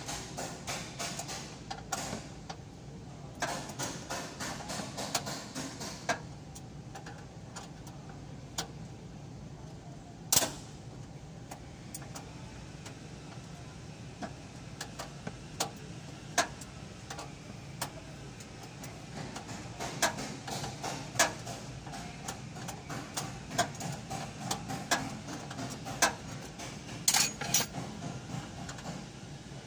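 Scattered clicks, taps and knocks of hand work on a car's body trim, over a steady low hum. The clicks come in dense runs near the start and again in the second half, with sharp single knocks about ten seconds in and around twenty-one and twenty-seven seconds.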